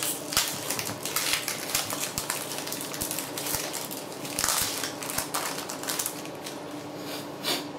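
Foil wrapper of a Pokémon trading-card booster pack crinkling and crackling as it is torn open and handled. There is an irregular run of crackles and rustles.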